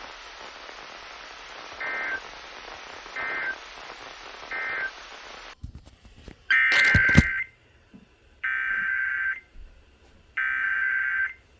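EAS digital data bursts (SAME code) warbling in two tones over weather-radio static. First come three short bursts: the end-of-message code. The static then cuts off, and three longer one-second header bursts start the next alert, with a sharp pop during the first.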